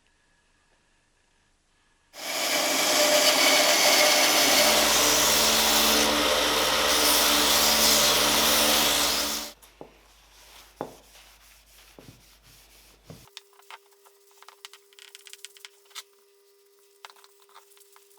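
Angle grinder with a sanding disc run against steel: a steady loud whirring rush that starts about two seconds in and cuts off after about seven seconds. Light clicks and handling taps follow.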